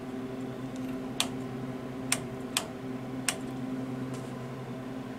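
Steady electrical hum from a running Tektronix 535A vacuum-tube oscilloscope, with four sharp clicks about a second apart in the first half.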